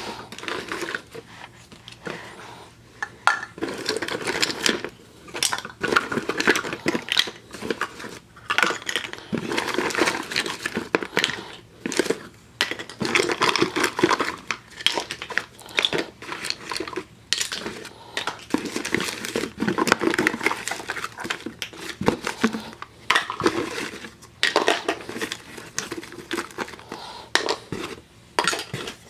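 Hard plastic candy containers and toy figures clattering and knocking against each other, with cardboard boxes and wrappers rustling, as a hand rummages through a box: a dense, irregular run of small knocks, clicks and rustles.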